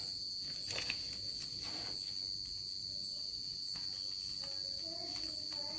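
A cricket trilling steadily: one continuous high-pitched tone, with a couple of faint clicks about a second in.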